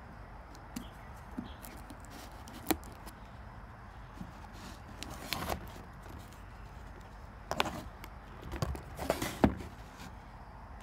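A cardboard shipping box being handled on a wooden table and its packing tape slit with a folding pocket knife: scattered taps, scrapes and knocks. One sharp tap comes a few seconds in, then clusters of knocks and scrapes in the second half, the loudest near the end.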